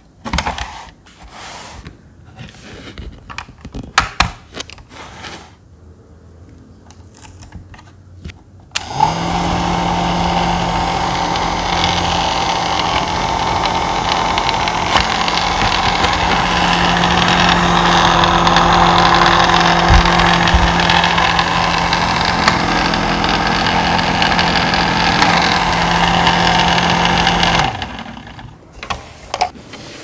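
Small plastic mini desk fan running steadily with an even motor hum and air noise, switched on about nine seconds in and cut off near the end. Before it starts, scattered clicks and knocks of the plastic fans being handled and switched.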